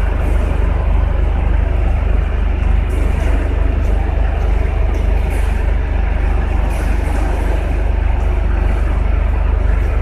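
Steady, loud, low machine hum and rumble with no change in pitch, with faint ticks now and then.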